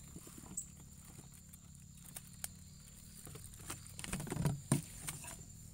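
Scattered taps and rustles from a plastic-mesh fish trap and the fish inside it being handled, with a louder flurry of knocks about four seconds in.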